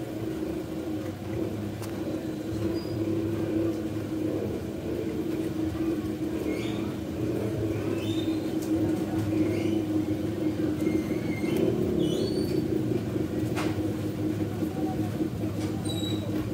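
A steady low hum of a running motor or engine, with a few faint short high chirps partway through.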